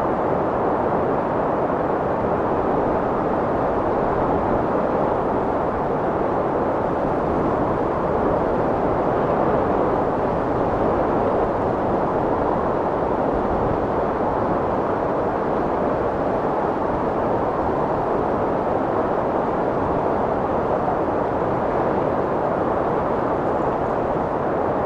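Strong wind blowing as a steady, unbroken rush, with only slight swells in strength.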